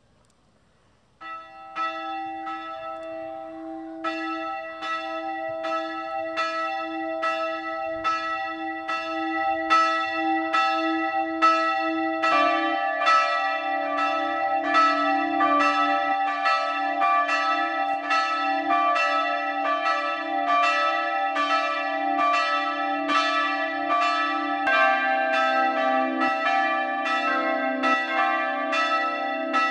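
Church bells ringing. A single bell starts about a second in, with strikes coming in a steady rhythm. A second, lower bell joins about twelve seconds in and a third, lower still, near the end, building up to a full peal.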